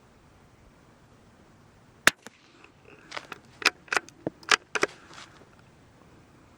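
A Brno/CZ 452 .22 LR bolt-action rifle fires one sharp shot of SK Standard Plus about two seconds in. A quick run of metallic clicks and clacks follows over the next two seconds as the bolt is worked to reload.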